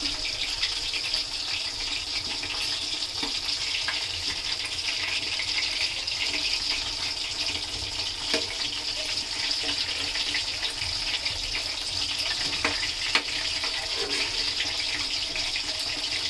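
Chicken pieces deep-frying in hot oil in an iron kadai: a steady sizzling hiss with fine crackle. A few light knocks of a steel ladle against the pan as the pieces are turned over.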